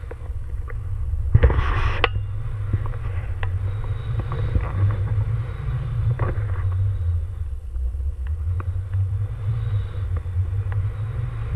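Wind buffeting an action camera's microphone during a paraglider flight: a steady low rumble, with a louder gust about a second and a half in.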